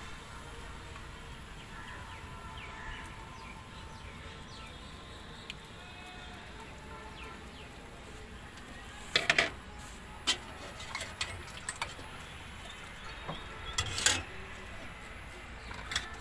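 Steady outdoor background noise at a street food cart, broken by sharp clatters of steel utensils on a steel counter, the loudest about nine seconds in and again near fourteen seconds, with lighter ticks between.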